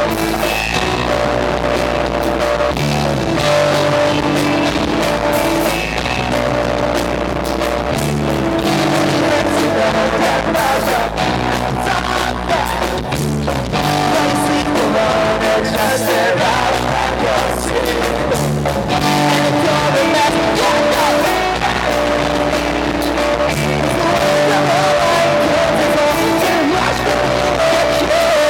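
Pop-punk band playing live, with loud electric guitars and a lead singer.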